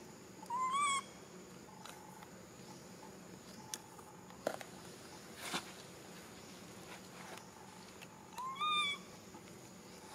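Infant long-tailed macaque giving two short rising coo calls, one about half a second in and one near the end, with a few faint rustles and clicks of dry leaves between them.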